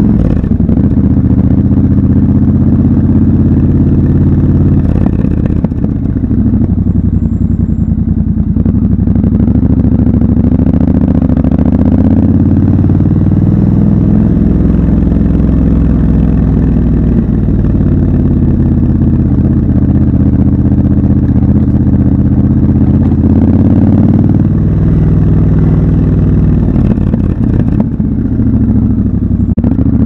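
Triumph Scrambler 1200 XC's 1200 cc parallel-twin engine under way in city riding, its pitch climbing and dropping again and again as the bike accelerates through the gears and rolls off the throttle.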